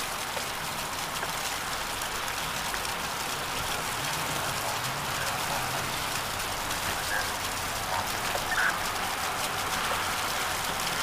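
Rainwater gushing from a downspout and splashing onto wet ground, a steady hissing splatter.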